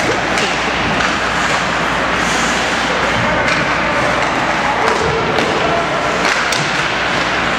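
Ice hockey play heard from the stands: several sharp knocks and thuds of sticks, puck and players against the boards, scattered over a steady arena hum.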